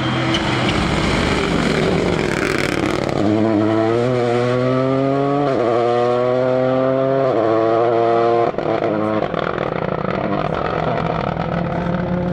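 Rally car engine at full throttle, its pitch climbing and dropping sharply twice as it shifts up through the gears, then cutting off abruptly as the driver lifts. A steady mix of engine and tyre noise continues around it.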